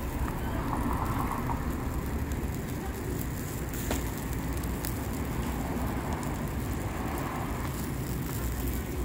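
Steady street traffic rumble around a charcoal barbecue grill, with a couple of sharp pops from the grill about four and five seconds in.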